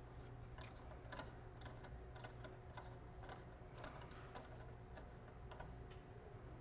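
Faint, irregular light clicks and ticks of a cartridge nut being threaded by hand onto a GrohSafe 3.0 shower valve cartridge.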